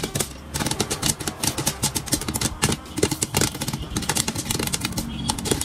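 Popcorn kernels popping in a covered pot, a dense, rapid run of pops.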